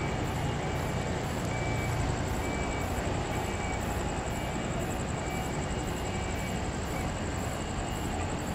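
Twin rear-mounted turbofans of a Brazilian Air Force Embraer jet running steadily while it taxis, a low rumble with a steady whine above it.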